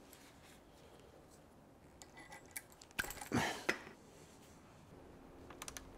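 Quiet handling noises: a few light metal clinks and a short rustle as a new power steering line, rubber hoses with metal pipe fittings, is laid onto a car's front subframe and steering rack. The sharpest clink comes about three seconds in, with small ticks near the end.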